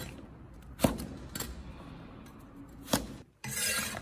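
Cleaver blade cutting through fresh spring bamboo shoot slices and knocking on a wooden chopping board: a few sharp single chops about a second apart, then a brief scraping near the end.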